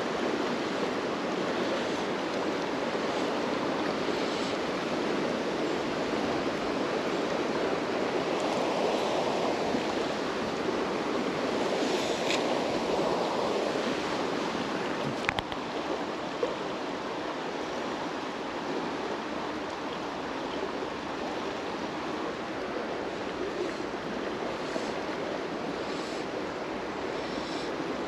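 Fast-flowing river water rushing past close by, a steady unbroken rush. A single sharp click about halfway through.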